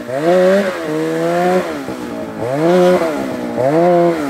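Snowmobile engine revved in repeated throttle bursts, its pitch climbing and dropping about four times, as a sled works its way down through deep snow toward the stuck sleds.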